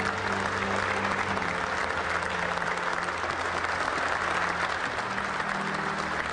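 Sustained applause from a room full of people, with held low notes of background music underneath.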